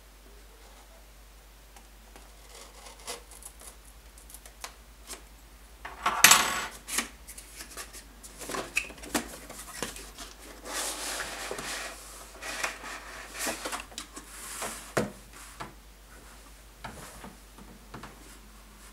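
Cardboard tablet box being opened by hand: scissors snip the seal, then the lid rustles and scrapes as it is slid off, with scattered handling clicks. The loudest scrape comes about six seconds in.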